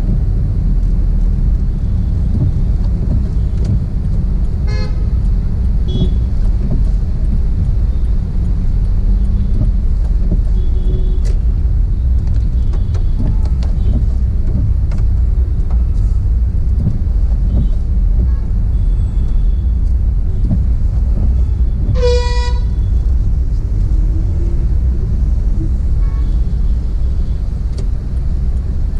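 Steady low rumble of a car driving through city traffic, heard from inside the cabin, with vehicle horns honking now and then. The loudest is a short, clear horn toot about two-thirds of the way through, and a weaker one comes a few seconds in.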